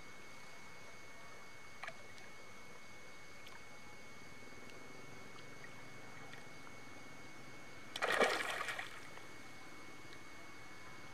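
A fish caught in a gill net thrashing at the water's surface, with one loud splash lasting under a second about eight seconds in and a small splash about two seconds in.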